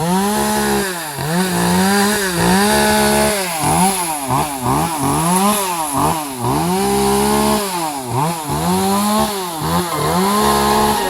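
Chainsaw engine cutting wood. Its pitch dips as the chain bites and rises again as it frees, over and over about once a second.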